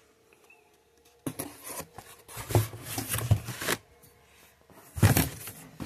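Cardboard boxes and parts packaging being handled and shifted: irregular rustling and scraping with a few dull knocks. It comes in two spells, one from about a second in until nearly four seconds, and a louder one starting near the end.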